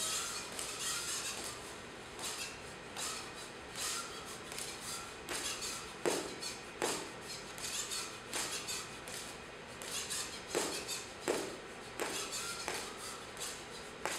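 Salto-1P jumping robot hopping over and over on a mat: a sharp click-and-knock from its spring-loaded leg at each landing and take-off, about once a second.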